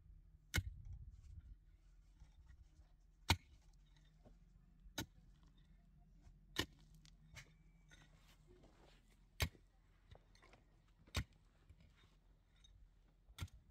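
A series of sharp knocks, about seven of them, spaced roughly two seconds apart, with a few fainter taps in between.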